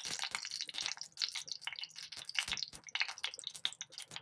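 Hot oil sizzling and spattering in a clay pot as green chillies fry with spluttering mustard seeds: a dense run of irregular crackles and pops.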